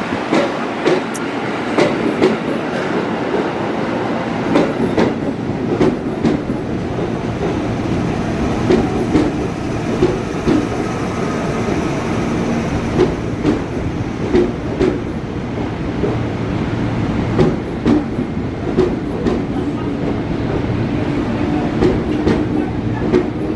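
Commuter electric multiple-unit train pulling out past the platform, its wheels clacking over the rail joints, mostly in close pairs as each bogie passes, over a continuous running rumble. A steady hum comes in about halfway through.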